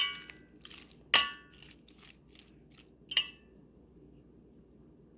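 Spoon clinking against a mixing bowl three times, each a sharp ringing clink, while chicken is mixed with its marinade spices.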